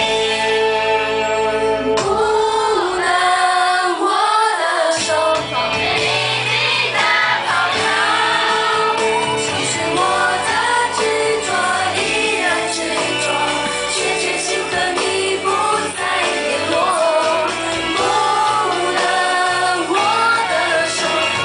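A woman singing a Mandarin pop song live into a microphone over instrumental accompaniment. Her voice comes in about two seconds in, after a short instrumental passage.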